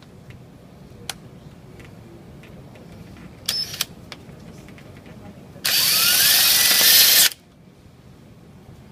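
Power drill driving screws: a brief burst about three and a half seconds in, then a longer run of about a second and a half, its pitch rising as it goes, fastening the casement window's corner pivot into new holes.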